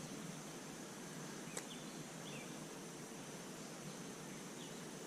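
Quiet outdoor ambience by a creek: a steady faint hiss with a few faint short chirps from small animals, and a single click about a second and a half in.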